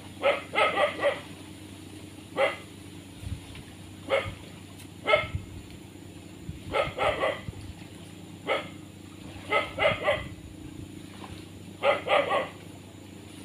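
A dog barking repeatedly: single barks and quick runs of three barks, coming every second or two.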